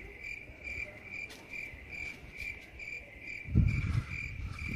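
Insect chirping steadily at a high pitch, about two chirps a second. A brief low rumble of wind or handling on the microphone comes about three and a half seconds in.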